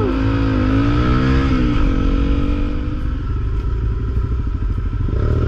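Honda CRF250L single-cylinder four-stroke engine running under way on the road, its note wavering and dipping briefly about two seconds in.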